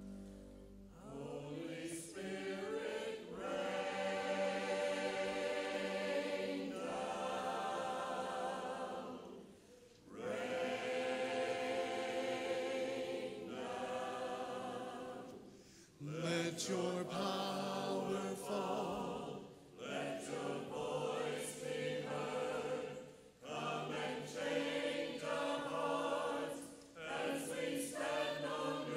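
Church choir singing, line by line with short breaks between phrases; the singing comes in about a second in, after steady instrumental tones.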